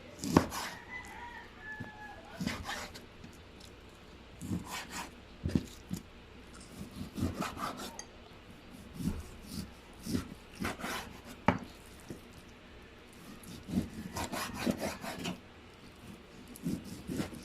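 Knife cutting raw beef on a wooden chopping board: irregular knocks and scraping strokes, a few seconds apart. A rooster crows in the background near the start and again at the very end.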